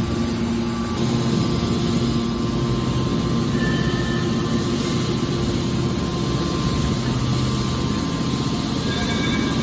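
Hydraulic scrap-metal baler running: a steady machine drone with a low hum.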